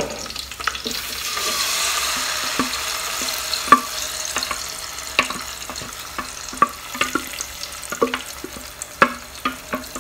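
Blended tomato, onion and pepper puree sliding from a plastic food-processor bowl into a hot pot and sizzling, with a run of sharp knocks and taps as the bowl is tapped against the aluminium pot to empty it; the loudest knock comes nearly four seconds in.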